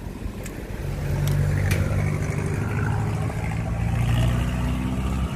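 A motor vehicle engine running close by, coming in about a second in and holding a low, steady note. A few light clinks of a spoon in a steel mixing bowl sound over it.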